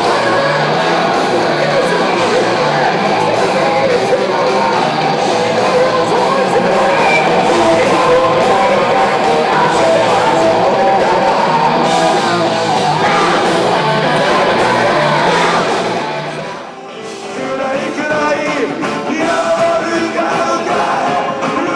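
Live punk band playing loudly with singing. After a brief dip about three-quarters of the way in, a different band takes over: a punk folk band with banjo, upright bass and a singer.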